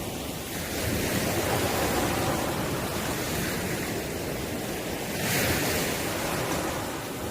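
Ocean surf washing onto the shore. A low rumbling swell builds about a second in, and a hissing wash of water comes around five seconds in.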